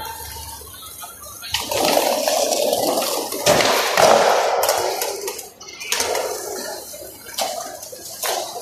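Skateboard wheels rolling on a smooth tiled floor, a rushing noise, with a few sharp clacks of boards being popped and landed.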